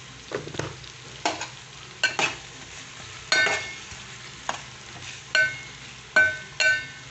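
Metal spoon stirring eggplant slices in a metal pan, clinking against the pan about a dozen times with short ringing tones. A faint frying sizzle runs underneath.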